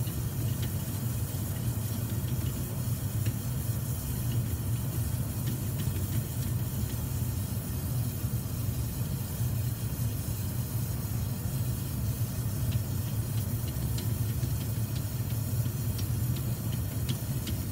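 Oxy-acetylene torch flame running steadily with a low rumble and hiss as it melts a silver and copper charge in a casting crucible, with a few faint ticks near the end.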